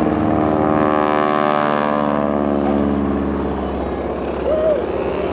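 Propeller biplane's radial engine flying past low, loudest about a second and a half in. Its pitch then drops steadily as it passes and draws away.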